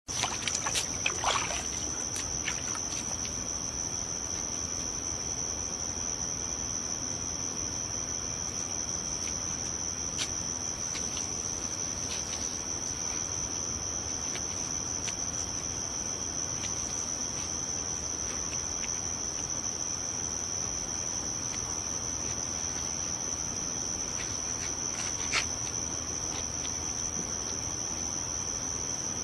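A steady high-pitched tone held unbroken over a low hiss, with a few faint clicks in the first couple of seconds and a single tick near the end.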